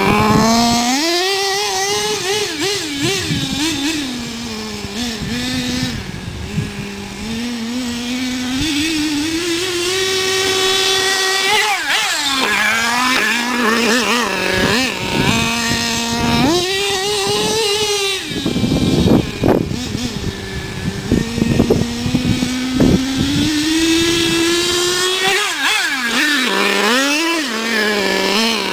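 HPI Savage SS RC monster truck's 4.6 cc nitro engine revving up and down under the throttle and dropping back to idle, over and over. About two-thirds through comes a run of knocks and clatter.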